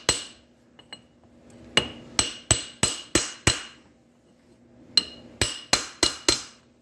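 Hammer striking a length of pipe used as a seal driver, knocking the rear oil seal into a Tremec TR3550 transmission's tailhousing. One blow, then two quick runs of five or six metallic strikes with a pause between them. Each strike has a short ring.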